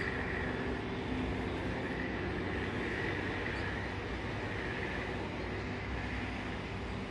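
Jet airliner's turbofan engines running at taxi power: a steady noise with a high whine that swells and fades slightly.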